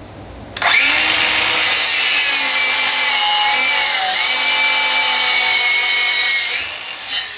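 DeWalt DCS361 7-1/4" cordless sliding compound miter saw, a 60 V battery saw, starting up and cutting through a 2x4 for about six seconds, its motor whine dipping slightly under load. Near the end the trigger is let go and the blade winds down, with a single clack.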